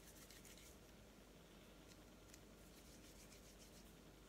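Near silence, with faint soft rubbing as hands roll a plasticine sausage between the palms, coming and going in short stretches.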